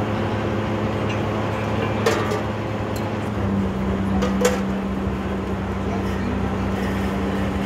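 Borewell drilling rig's engine running steadily, its note changing about three and a half seconds in, with a few sharp knocks.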